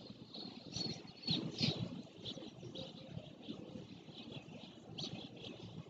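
Small birds chirping in short repeated calls, with a cluster of louder chirps about a second in, over a low, uneven rumble.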